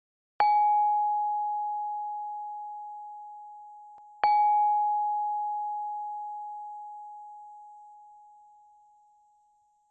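Two struck bell-like chime tones about four seconds apart, each ringing on one steady pitch and fading slowly; the second strikes while the first is still dying away.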